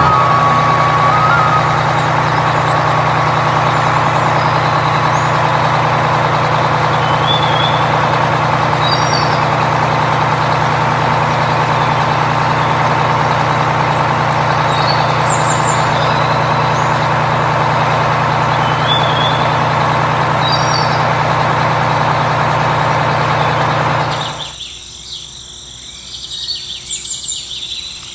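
Steady truck engine running, with birds chirping a few times over it. The engine sound cuts out about 24 seconds in, leaving the birds.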